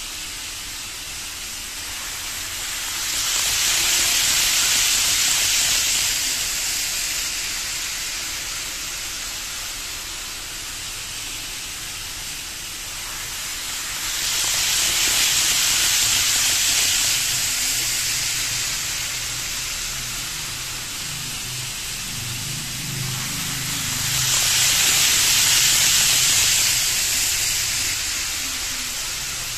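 N-gauge 500 series Shinkansen model train running on its track: a rushing hiss of wheels and motor that swells three times, about every ten seconds, as the train comes past close by.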